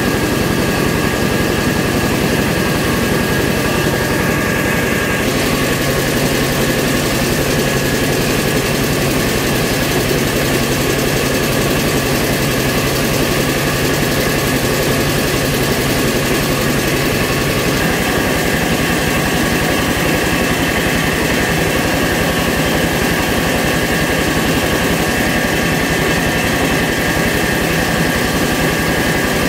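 Truck-mounted mobile rice mill running steadily as it hulls and polishes rice, a loud, even machine noise with a steady hum. The low hum shifts slightly about five seconds in and again near eighteen seconds.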